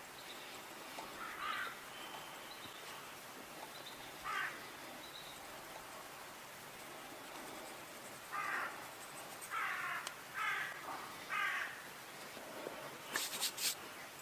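A crow cawing six times: two single caws early on, then four in quick succession from about eight seconds in. A few sharp clicks near the end.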